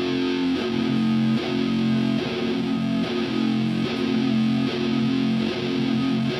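Live doom metal: an electric guitar played through a loud amplifier, holding thick sustained chords over a slow drum beat.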